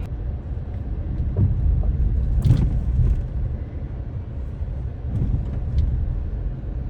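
Car's road and engine rumble heard while driving, with a brief louder rush about two and a half seconds in.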